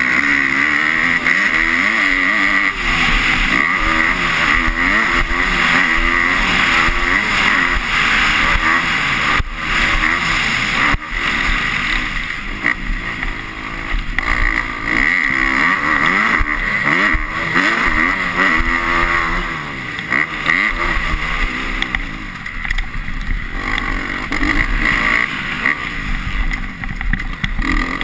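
Motocross bike engine heard from an on-board camera, revving up and down continuously as the rider accelerates and shifts around the track. Two sharp knocks come about a second and a half apart near the middle.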